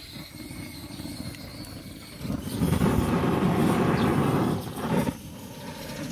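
Wind buffeting the microphone: a steady low rush that swells into a loud, uneven rumble about two seconds in and drops back about three seconds later.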